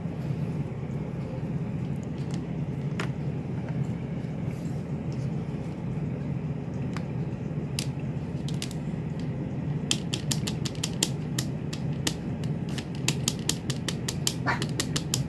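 A mini ink pad's plastic case tapped again and again against a clear plastic sheet: a few scattered clicks at first as the pads are handled, then quick clicking several times a second from about ten seconds in. A steady low hum runs underneath.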